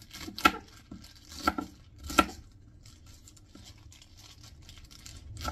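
Large chef's knife chopping spinach on a wooden cutting board: three sharp knocks of the blade through the leaves onto the board in the first two and a half seconds.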